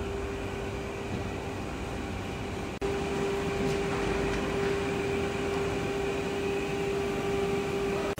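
Electric motor of a wood strip-ripping saw machine running steadily: a constant hum with one steady tone over a noisy haze, broken by a brief dropout about three seconds in.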